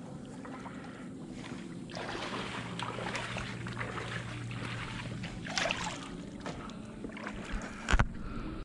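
Water sloshing and splashing in uneven swells, with a sharp knock just before the end.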